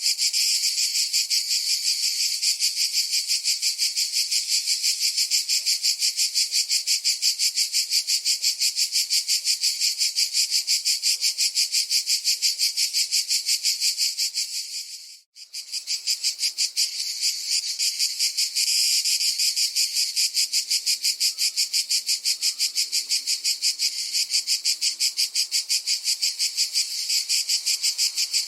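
Cicadas buzzing: a dense, high-pitched pulsing drone at about five pulses a second that cuts out for a moment about halfway through and then resumes.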